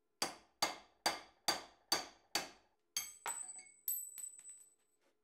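Hammer blows on a drift knocking a worn kingpin bearing race out of a Dana 25 steering knuckle: six sharp metal strikes, just over two a second. A few lighter metallic clinks with a high ring follow near the end.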